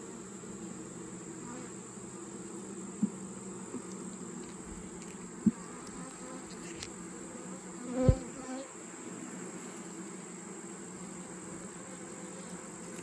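Swarm of honeybees buzzing around an open hive, a steady hum. A few short knocks break through, the loudest about 8 seconds in.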